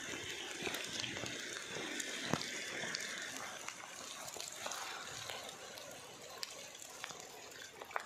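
Rain falling steadily, an even hiss with scattered sharp ticks of drops.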